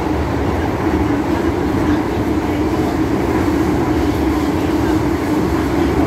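MTR Island Line metro train running between stations, heard from on board: a steady rumble of wheels and motors with a constant low hum.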